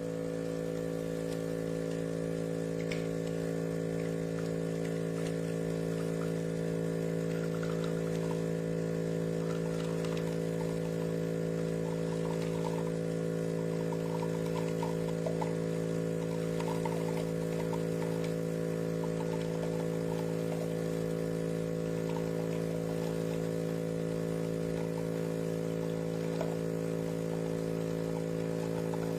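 Espresso machine pump running with a steady, even hum, with faint trickling of liquid over it.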